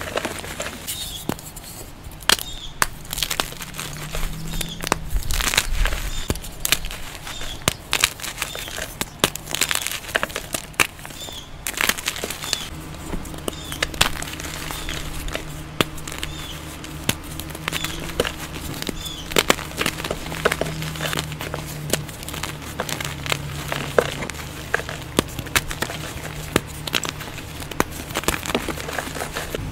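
Soft, fresh blocks of plain white gym chalk crushed and broken apart between bare hands: a dense run of irregular dry crunches and crackles as the blocks crumble to powder.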